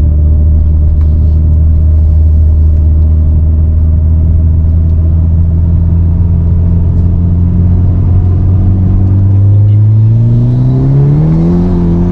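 Mitsubishi 4B11T turbocharged four-cylinder engine of a converted car under way, holding a steady pitch, then revving up in a smooth rising climb over the last few seconds.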